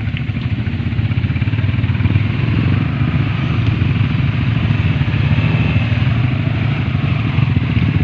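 Motorcycle engine running in a low gear as the bike is ridden slowly through deep mud, growing a little louder over the first couple of seconds as it comes closer.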